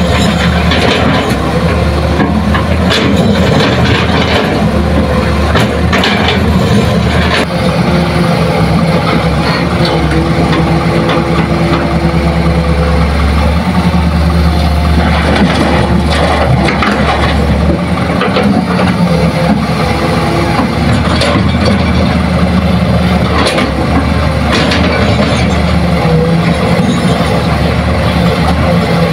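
Hitachi hydraulic excavator's diesel engine running under load while digging and loading, its pitch shifting slightly as the hydraulics work. Irregular clunks and thuds come from the bucket and from earth dropping into the dump truck's steel bed.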